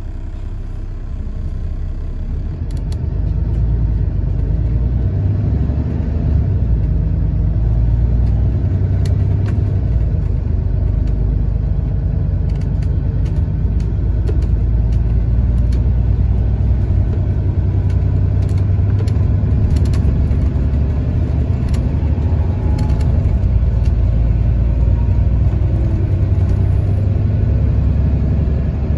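Scania K280CB Fencer bus's six-cylinder diesel (a Scania DC07, essentially the Cummins 6.7-litre with a Scania turbocharger), heard from inside the passenger saloon, pulling away and accelerating. The low engine note builds over the first few seconds and then holds steady, with scattered sharp clicks over it.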